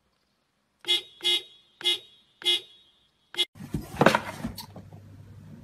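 Car horn honked in five short toots, heard from inside the car. About three and a half seconds in it gives way to knocks and rustles over a low steady hum.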